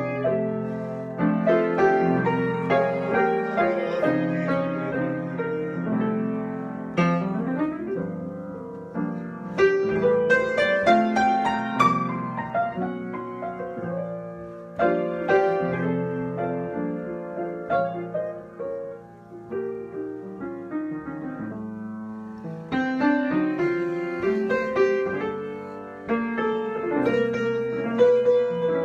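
Solo piano improvisation: chords and running melodic lines, swelling louder and falling back to softer passages.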